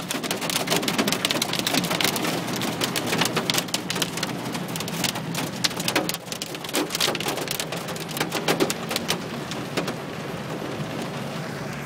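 Heavy storm rain pelting the glass and roof of a car, heard from inside the cabin: a dense patter of hard drop impacts that thins to a steadier hiss about ten seconds in.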